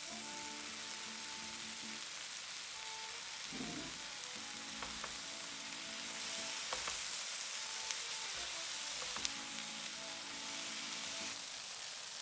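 Mushrooms, cherry tomatoes, red onion and baby spinach sizzling in oil in a non-stick frying pan as they are stirred with a spatula, with a few sharp clicks of the spatula against the pan. Soft background music plays underneath.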